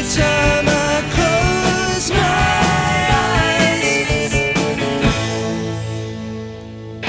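Background music: a rock song with guitar and a sung melody. About five seconds in it thins out and fades, and the full band comes back in at the very end.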